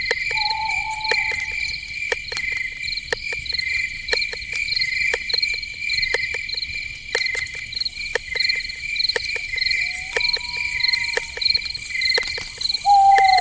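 Night chorus of crickets chirping steadily, about two chirps a second, over many sharp clicks. Three short whistled calls cut through it: one at the start, one about ten seconds in, and a louder falling one near the end.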